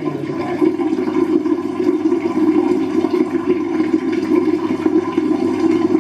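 Shower running, water spraying steadily.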